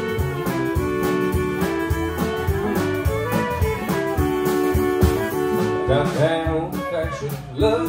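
Live honky-tonk country band playing an instrumental break: two fiddles playing the melody together over electric guitar, bass and a steady drum beat. Near the end the notes waver and slide.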